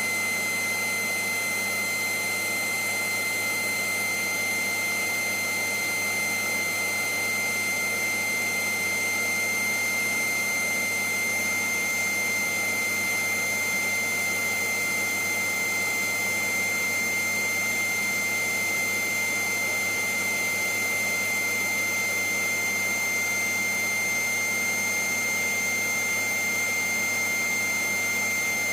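Vacuum cleaner running steadily: a constant rush of air with a high, steady whine from the motor, unchanging throughout.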